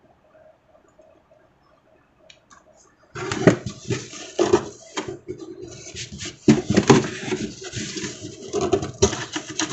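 Paper gift receipt and cardboard shipping box being handled: quiet for about three seconds, then loud, irregular rustling and crinkling with scattered sharp crackles.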